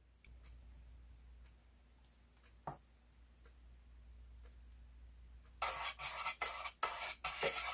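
Small brush scratching and rubbing across bare plywood as it works thinned finishing-resin sealer into the boat hull's compartments, a run of quick strokes starting a little past halfway. Before that it is nearly quiet, with one light tap.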